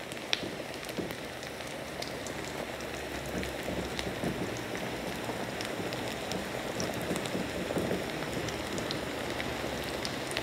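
Diced chicken sizzling in hot coconut oil in a frying pan over high heat, a steady crackle with scattered pops as the pieces sear and brown.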